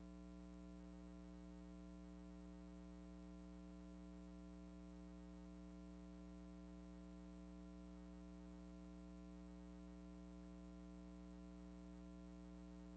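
Steady electrical mains hum, a low buzz made of many even tones that never changes, with nothing else heard above it.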